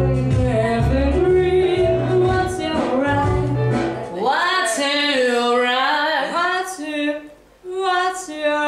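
A woman singing a passage of a song from a musical over a backing track with a heavy bass line. About four seconds in the accompaniment drops away and her voice carries on alone, with wavering, gliding notes and a brief break for breath near the end.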